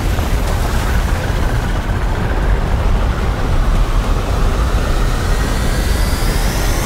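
Film sound design of a giant sandworm surging through sand: a heavy, continuous deep rumble, with a thin whine rising steadily in pitch over the second half.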